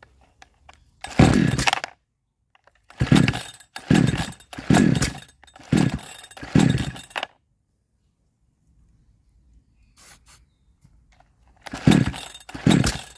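Chinese 62cc two-stroke chainsaw being pull-started over and over, about eight short pulls in three groups, each turning the engine over briefly without it starting. The owner puts this down to weak spark from the coil and a carburettor stuck full open.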